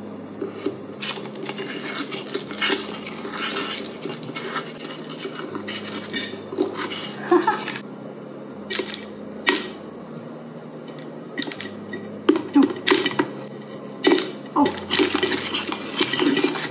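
Popcorn kernels popping in a stainless steel electric camping kettle (Joulle), in sharp irregular pops, while a stainless steel straw stirs the kernels and clinks against the pot. A low steady hum runs underneath.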